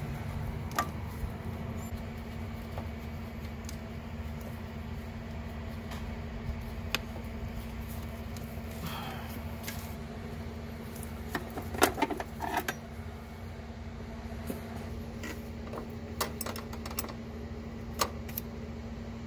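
Scattered light metallic clicks and knocks as the clutch master cylinder and clutch line are worked into position by hand under the brake master cylinder, with a quick cluster of knocks about twelve seconds in. A steady low hum runs underneath.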